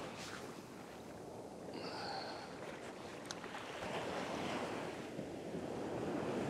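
Small ocean waves breaking and washing up the sand, swelling and easing, with wind buffeting the microphone. A brief high tone sounds about two seconds in.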